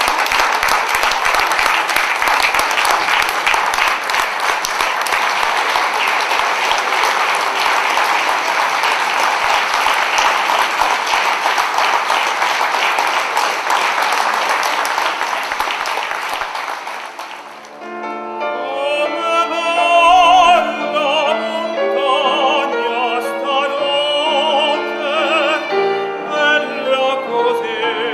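Audience applauding steadily for about seventeen seconds; the clapping fades out and operatic singing with piano accompaniment begins.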